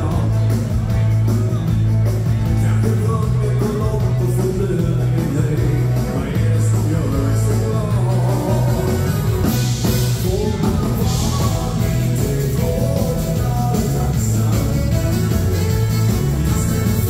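A Scandinavian dance band playing live: a male singer over electric guitar, bass, drums and keyboards, with a steady dance beat.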